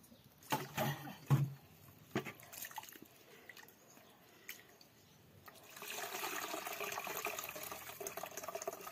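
Rice being rinsed by hand in an aluminium pot. A few sloshes and knocks in the first couple of seconds, then from about six seconds in a steady stream of water being poured.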